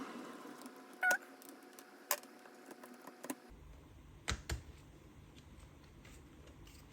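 A few separate clicks and light taps of laptop parts being handled while the battery is worked out of the opened laptop, the loudest a sharp click about a second in.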